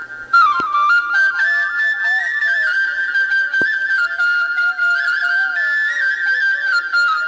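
Flute (shpelai) playing a slow melody: held notes that step up and down with quick ornaments between them.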